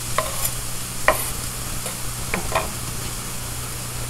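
Onions and garlic sizzling in olive oil in a stainless steel skillet, with four or so sharp pops and taps over the steady hiss. A little water left in the pan is making the hot oil spit.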